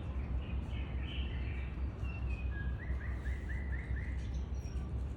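Small birds chirping, with a run of about six quick repeated notes about three seconds in, over a steady low background rumble.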